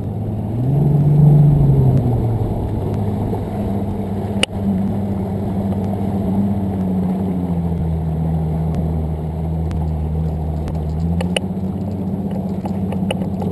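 Bass boat's outboard motor running under way, rising in pitch and loudness about a second in as the boat is turned and throttled up, then holding steady. A single sharp click about four and a half seconds in.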